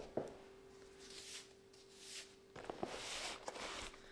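Faint rustling and a few light clicks from the packaging being handled, a plastic bag and foam, over a faint steady hum.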